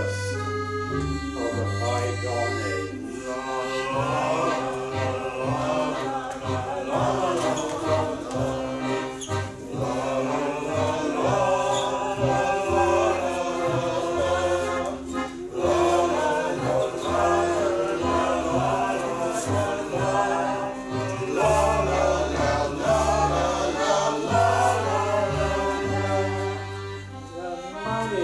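Live music: accordion chords over a stepping bass line, with several voices singing together over it from about four seconds in.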